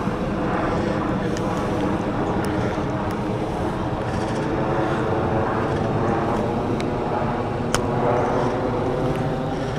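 Steady engine drone, holding one pitch throughout, with a few faint clicks.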